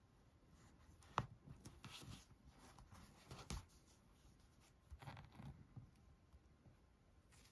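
Faint rustling of yarn and crocheted fabric as a metal needle is worked through the stitches and the yarn drawn through, in several short spells, with a sharp tick about a second in.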